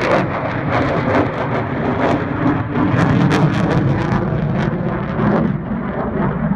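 Jet noise from an F-22 Raptor's two Pratt & Whitney F119 turbofans passing overhead: a loud, deep rumble with crackling through it. The crackle thins out near the end as the jet moves away.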